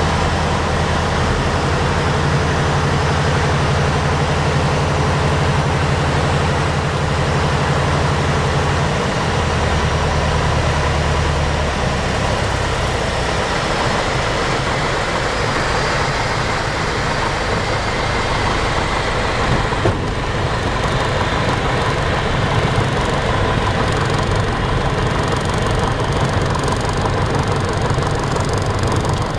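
Lycoming O-320 four-cylinder aircraft engine and propeller running, heard inside a small plane's cockpit with steady wind noise. The engine's even low drone breaks up into a rougher, lower rumble a little under halfway through as power comes back for landing, and there is one brief knock about two-thirds of the way in.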